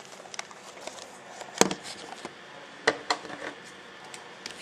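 Hands handling an iPad box and its plastic wrapping: scattered small crinkles and taps, with two louder clicks about a second and a half in and just under three seconds in.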